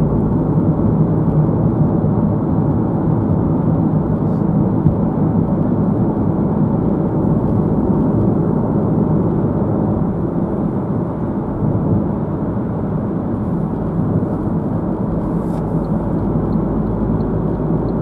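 Steady road and engine noise inside a car cabin at motorway speed, an even rumble with tyre hiss. Faint regular ticking comes in near the end.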